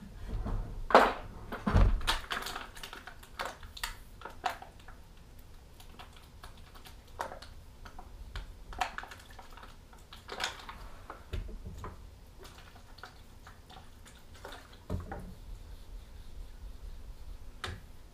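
Irregular clicks, knocks and taps of a whetstone in its holder being set and handled on a wooden bench, with a plastic water bottle squeezed over the stone. The two loudest knocks fall in the first two seconds.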